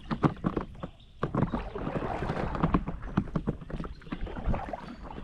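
Irregular splashing and knocking in shallow river water, many quick strokes in a row, with a brief lull about a second in.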